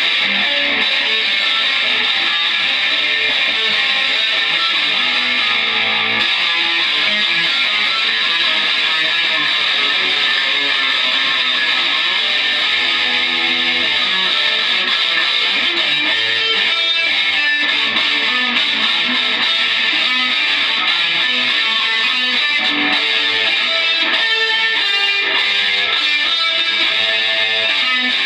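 Electric guitar played loud and without a break, a dense, steady wall of noise with notes shifting underneath.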